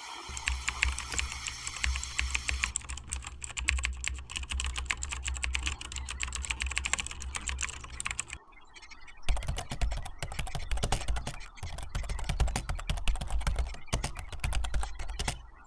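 Rapid keyboard typing clicks over a steady low hum, pausing briefly about eight and a half seconds in before resuming.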